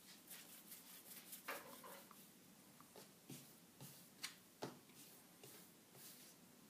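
Near silence with a few faint soft taps and rubs: hands pulling a piece of cookie dough from a bowl and rolling it with the palms on a wooden cutting board.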